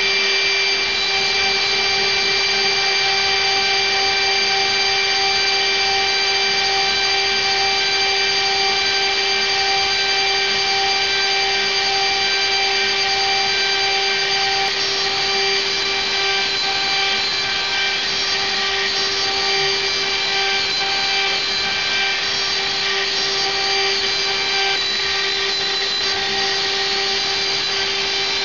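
A power tool or machine running steadily, a constant whine over a dense hiss, with no change in speed.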